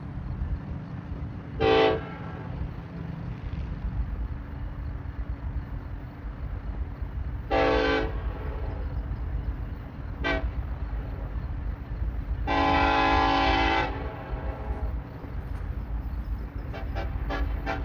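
Nathan K5LLA five-chime air horn on a BNSF freight locomotive sounding four blasts: two short, one very short and a final longer one. Under them is the steady low rumble of the moving train, and a rapid clatter of about four clicks a second starts near the end.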